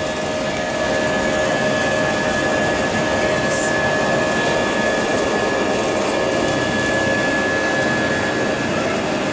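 Jet engine noise inside the cabin of an Airbus A320 with IAE V2527-A5 engines: a steady rush with two steady whining tones, getting slightly louder about a second in.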